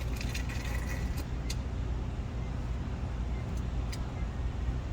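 A few short clicks of buttons being pressed on a Schlage electronic keypad deadbolt while a code is entered, over a steady low background rumble.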